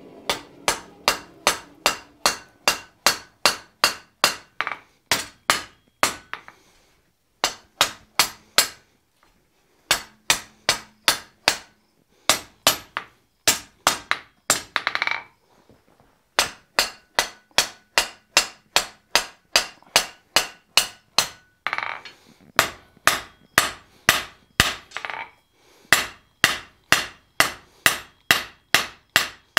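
Blacksmith's cross-peen hand hammer striking a glowing iron bar end on a steel anvil, about three sharp ringing blows a second in runs broken by short pauses, as the hot end is forged into shape.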